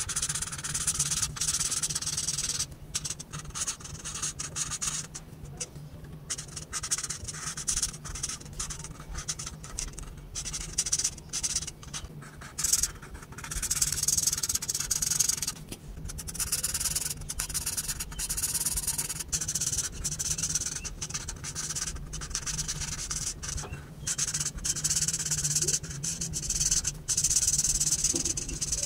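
Felt-tip marker rubbing back and forth across paper in repeated colouring strokes, a dry scratchy hiss broken by short pauses as the tip lifts. A faint steady low hum runs underneath.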